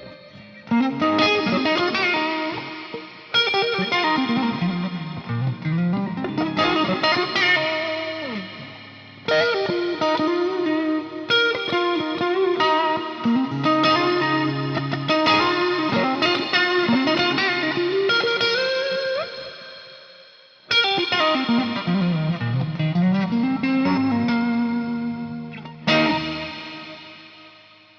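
Stratocaster electric guitar played through an effects patch, in lead phrases with string bends and slides. Notes ring out and die away between phrases.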